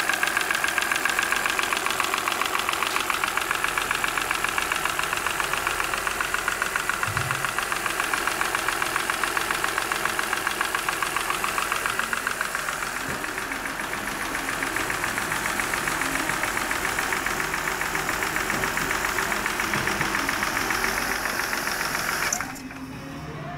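Daewoo X25D inline-six engine idling with a rapid, even ticking from the valvetrain: the noise of a failed rocker arm and hydraulic lifter. The sound cuts off suddenly near the end.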